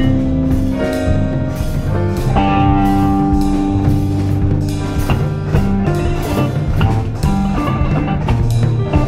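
Instrumental rock band music: a drum kit keeps a steady beat under bass and sustained guitar notes.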